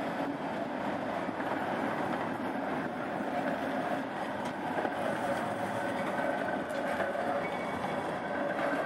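Electric city tram passing close by: the steady rolling of its steel wheels on the street rails, with a faint high steady tone joining in during the second half.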